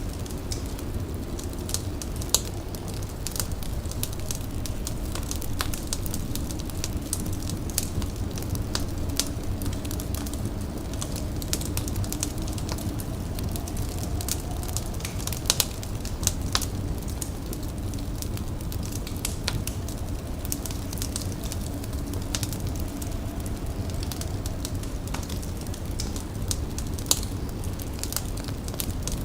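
Fire crackling and popping over a steady low rumble, with scattered sharp pops, a few louder ones about 2 seconds in, around the middle and near the end.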